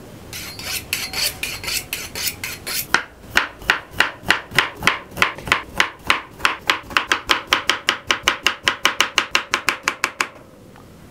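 A kitchen knife is drawn a few times along a sharpening steel with scraping strokes. Then the knife chops quickly through bitter gourd on a wooden cutting board, cutting thin rounds at about five or six knocks a second and getting faster. The chopping stops about ten seconds in.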